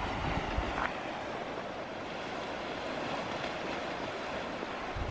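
Sea washing steadily over a rocky shore. Wind gusts bump the microphone about half a second in.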